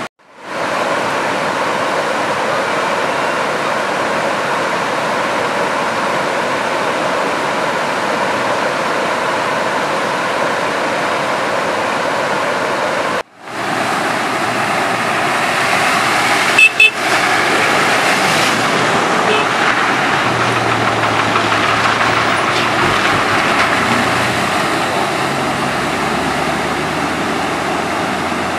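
Floodwater from an overflowing reservoir rushing across a submerged causeway in a steady rush, as buses drive through it. A little past halfway come two short vehicle horn toots, and a low engine hum sits under the water near the end.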